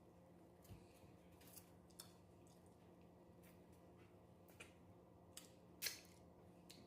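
Faint mouth sounds of someone eating: a scattering of soft lip smacks and clicks, about eight in all, the loudest a little before the end, over near silence.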